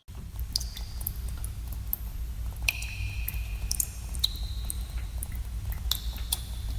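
Water drops falling one at a time into pools in a cave, each a sharp plink, several with a short ringing note, coming irregularly about once a second over a steady low rumble.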